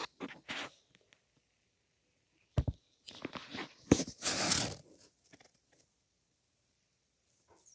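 Handling noise: irregular rustling and crunching with a few knocks, the loudest a short dull thump about two and a half seconds in and a busy stretch of rustling just after it, then quiet.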